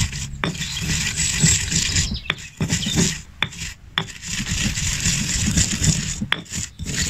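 Stone pestle grinding rosemary needles and coarse sea salt in a granite mortar: a gritty scraping, coming and going in strokes, with a few sharp clicks.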